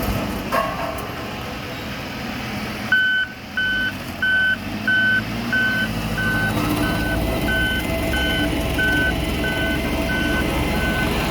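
Road roller's diesel engine running steadily, with its reversing alarm starting about three seconds in and beeping evenly, about three beeps every two seconds, as the roller backs up.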